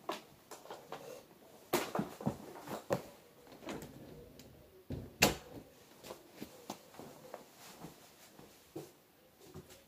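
Scattered clicks and knocks of hard plastic parts being handled, with no motor running; the sharpest knock comes about five seconds in.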